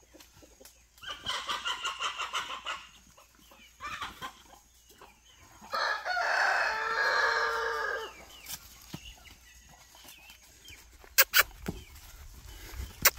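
A rooster calling: a quick run of clucks about a second in, then one long crow lasting about two seconds in the middle. A couple of sharp knocks come near the end.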